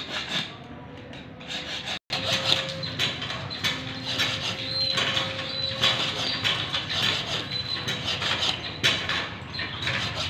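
A sickle blade being sharpened by hand: repeated rasping strokes of a file or scraping tool along the steel edge, about two a second, starting about two seconds in, with the blade ringing faintly.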